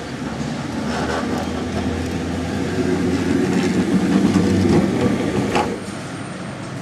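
Historic tram pulling away and passing close by: steady hum of its motors and the rumble of wheels on the rails, with a few clicks over the track, growing louder. The sound drops off sharply about six seconds in.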